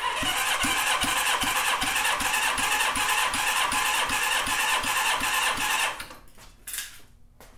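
Honda CB550 four-cylinder engine being cranked over by its starter for a compression test on one cylinder, with an even beat of about two and a half compression strokes a second; the cranking stops about six seconds in. The freshly rebuilt cylinder, with a little oil squirted in, builds to about 170 psi.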